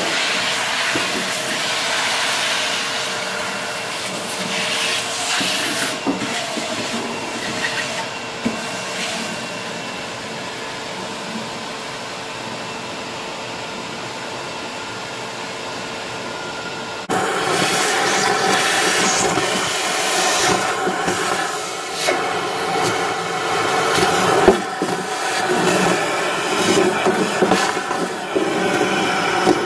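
Shop vacuum running with a steady whine and hiss as its ribbed hose sucks leaf litter and debris out of a car's cowl plenum chamber. About 17 seconds in the sound changes abruptly to a louder, rougher rush with debris rattling.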